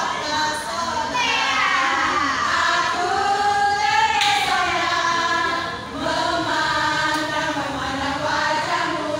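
A group of women chanting and singing a yel-yel team cheer together in unison, in sung phrases that rise and fall.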